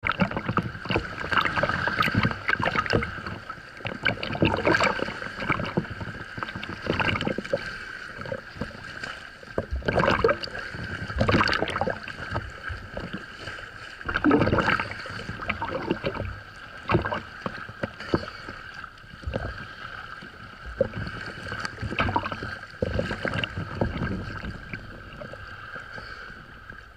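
Choppy sea waves sloshing and splashing over a camera held at the waterline, in irregular rushes every second or two. A steady high hum runs underneath.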